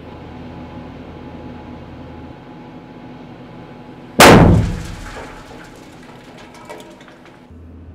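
A single underground blast from a homemade explosive charge in an opal mine tunnel. It is a sudden loud bang about four seconds in that rings out over about a second, followed by faint clattering.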